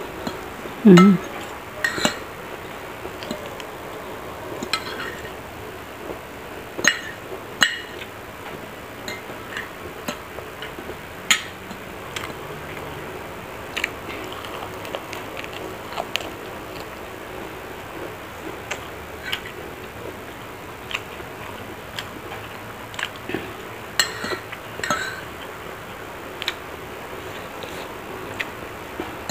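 Metal spoon and fork clinking and scraping against a ceramic plate while eating, in scattered short clicks.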